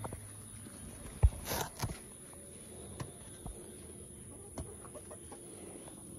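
Chickens clucking, with one sharp thump a little over a second in and a brief rustle just after it.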